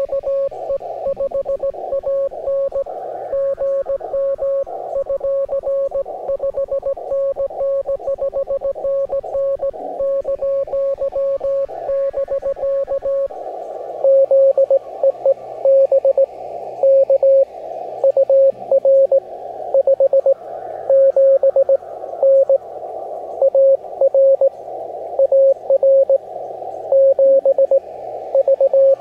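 Morse code (CW) on the 17-metre amateur band, heard through a ham radio transceiver: a single steady tone keyed on and off in dots and dashes over band hiss. The keying gets louder about halfway through, with longer tones, as a stronger signal comes in. A faint music bed plays underneath.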